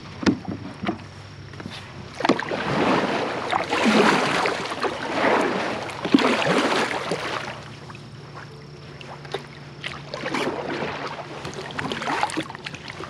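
Water splashing and sloshing against a kayak's hull as it moves off across the water, in two irregular swells with a few light knocks on the hull.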